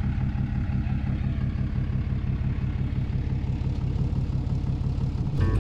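Ram 2500 pickup's Cummins turbo-diesel inline-six running at low revs as the truck tows a travel trailer slowly at walking pace, a steady low engine sound with an even pulse.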